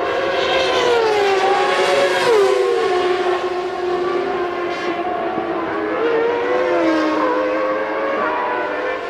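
Mid-1990s Formula One cars running at racing speed, several engine notes at once, each sliding up and down in pitch through gear changes and as the cars pass.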